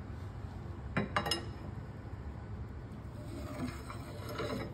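Steel recline rod of an antique Koken barber chair being slid into its guide sleeve in the chair base, with a few quick metal clinks about a second in and faint metal scraping near the end.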